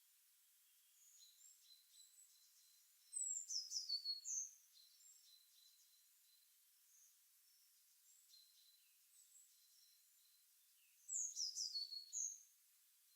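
Morning birdsong: one bird sings a short, loud phrase of quick high notes twice, about eight seconds apart, while fainter birds chirp in the background.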